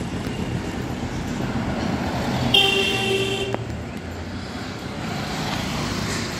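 Street traffic rumbling steadily, with a vehicle horn sounding once for about a second a little over two seconds in.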